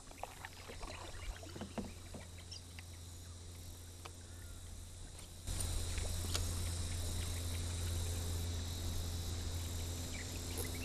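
Quiet riverside ambience: a faint steady insect drone with a low steady hum under it and a few light clicks. The background grows louder about halfway through.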